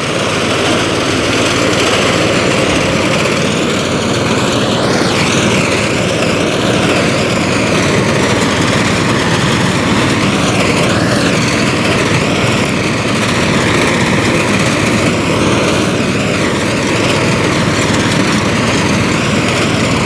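Mini-tractor wheat reaper's small engine running steadily under load while the machine cuts standing wheat.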